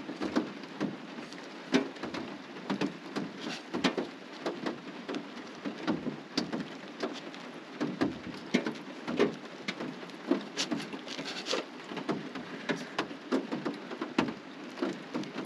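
Rain pattering: a steady hiss dotted with many irregular drop hits.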